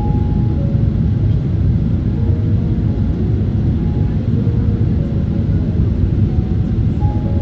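Boeing 777-300 cabin noise in flight: a loud, steady low rumble of the engines and rushing air.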